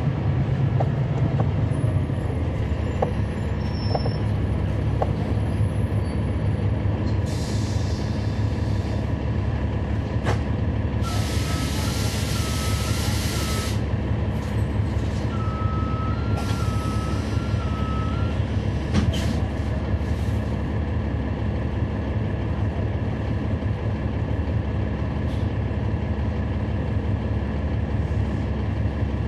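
The Cummins ISL9 diesel of a NABI 40-SFW transit bus running steadily. Three short bursts of air hiss come through the middle stretch, and a warbling electronic beep sounds during the second and third.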